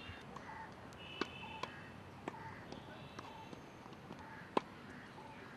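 Tennis balls being struck by rackets and bouncing on grass courts: a few sharp, separate pocks, the loudest about four and a half seconds in, with birds chirping high in the background.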